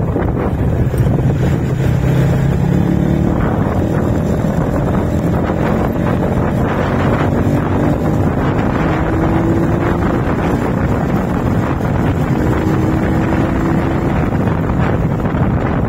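Wind buffeting the microphone on a moving motorcycle, with the engine running underneath and its note climbing slowly a few times as it picks up speed.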